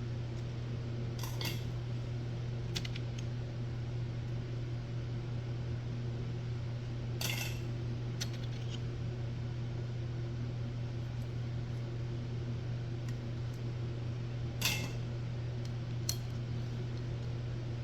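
Metal motorcycle clutch parts clinking and tapping together about six times as they are handled, over a steady low hum.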